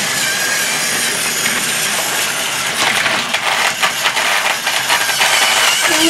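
Battery-powered TrackMaster toy trains running on plastic track: the motors make a steady whirr and the wheels rattle and click over the track joints, with the clicking getting busier about halfway through.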